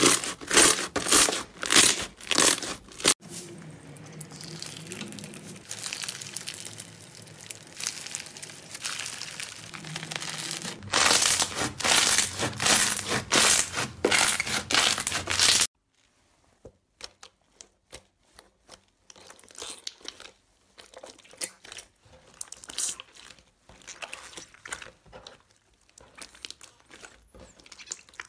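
Hands stretching, squeezing and pressing slime, making crackling, crinkling and popping sounds. The loudest crackling comes at the start and again in the middle. It then drops off abruptly to quieter, scattered clicks and pops.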